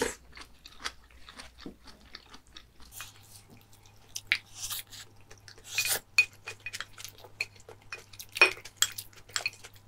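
Eating at the table: wooden spoons and chopsticks clicking and scraping against ceramic rice bowls, with chewing between the clicks. A few clinks stand out, the sharpest near the end.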